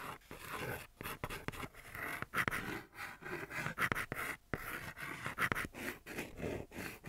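Chalk writing on a hard surface: a quick series of short scratching strokes with small taps between them, one character after another.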